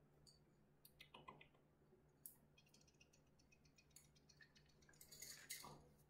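Near silence with faint, scattered light clicks and ticks, a quick run of them around the middle, and a brief louder rustle near the end: a young puppy moving about on a whelping pad.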